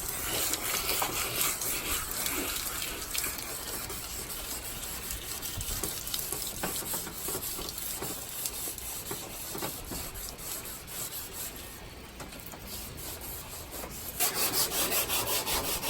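Wet sandpaper rubbed back and forth by hand over a carbon fiber hood, scratching off the old, sun-damaged clear coat. The rasping gets louder about two seconds before the end.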